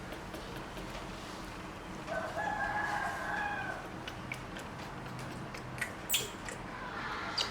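A rooster crowing once, a single held call of under two seconds, followed later by a few faint clicks.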